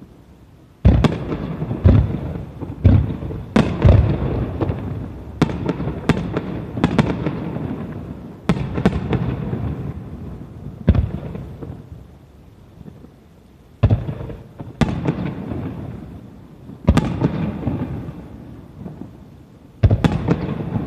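Aerial firework shells bursting: a string of sharp booms, each followed by a rolling rumble of echo. They come in quick succession, about one a second, for the first eight seconds, then more spaced out, every two to three seconds.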